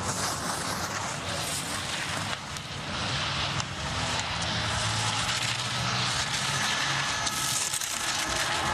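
Giant slalom skis carving turns on the race course snow: a continuous scraping hiss from the ski edges, growing louder after about three seconds.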